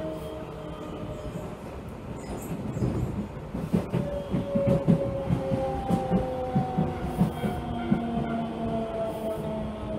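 Hankyu 66-series electric commuter train heard from inside the car: the motor whine falls slowly in pitch as the train slows. From about three and a half seconds in, the wheels clatter over rail joints in a quick irregular run of clicks for several seconds.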